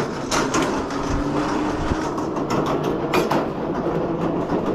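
An e-bike's fat tyres rolling over a metal grating bridge deck: a continuous rattle and clatter broken by sharp knocks at irregular intervals.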